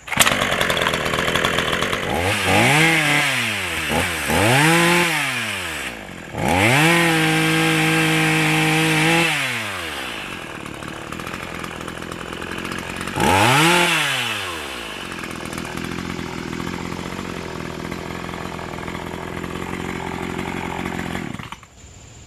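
Gas chainsaw revving up and down in short bursts, held at full speed for about two seconds, then revving once more. It then runs at a steady lower speed until it stops near the end.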